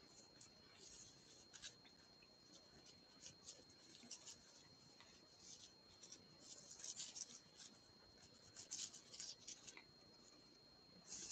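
Near silence with faint, irregular scratchy rustling of a crochet hook working yarn through stitches, over a faint steady high whine.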